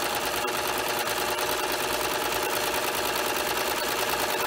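Serger (overlock machine) running steadily at speed, sewing a rolled-hem thread chain over fishing line, with a fast, even stitching rhythm.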